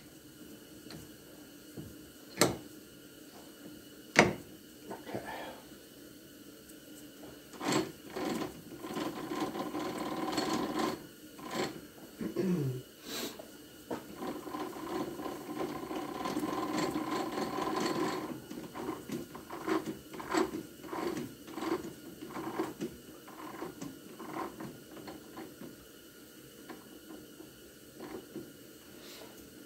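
Metal knocks and clicks from setting up a benchtop metal lathe: the live center going into the tailstock and the three-jaw chuck being tightened with its chuck key. A steadier mechanical whirring runs for several seconds in the middle, and a quick run of small clicks comes about two-thirds of the way through.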